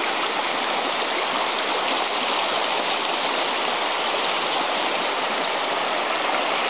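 Shallow, clear river water running fast over rocks and stones in a riffle, a steady, even rush of water.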